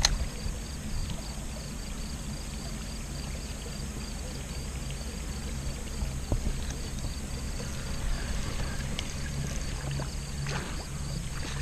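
Electric trolling motor running with a steady low hum and a faint, steady high whine.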